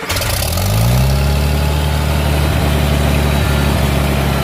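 Antique Farmall gas tractor engine catching and firing up hot without choke. Its revs climb over the first second, then it settles into a steady idle.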